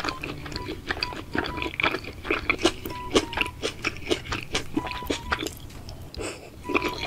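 Close-miked ASMR eating sounds: chopsticks lifting and dipping slices of raw beef, and wet mouth sounds of chewing the raw meat, in a rapid, irregular run of short clicks and smacks. Faint background music plays underneath.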